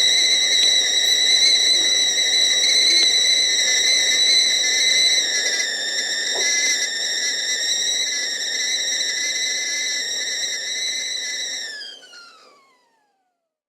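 Stovetop kettle whistling at the boil: a steady, high whistle over a low rushing boil, which slides down in pitch and dies away about twelve seconds in.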